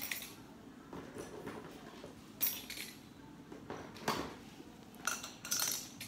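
Fidget spinners being taken out and set down on a hard tabletop: a few separate clicks and clinks, a second or so apart.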